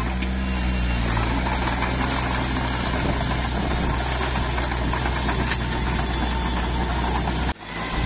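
Small Komatsu D21P bulldozer's diesel engine running steadily under work, with dense metallic clatter over a low hum. The sound drops out abruptly for a moment near the end.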